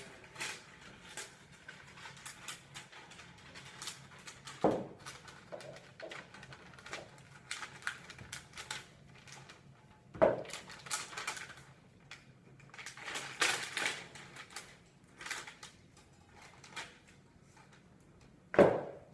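Scattered clicks, knocks and rustles in a small room, with three louder thumps about five, ten and nineteen seconds in.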